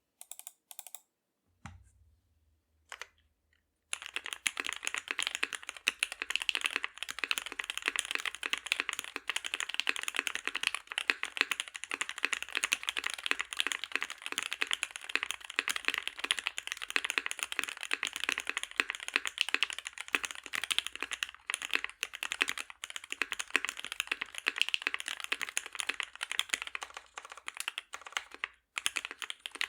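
Custom Peachyuu (Kyuu) mechanical keyboard with lubed C3 Tangerine linear switches on a copper plate being typed on. A few scattered keypresses come first, then continuous fast typing from about four seconds in, with a short break near the end.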